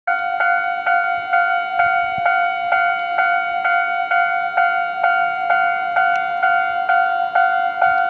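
Japanese railway level-crossing warning bell ringing in a steady rapid rhythm, a little over two strikes a second, with each strike ringing on into the next. It signals that a train is approaching the crossing.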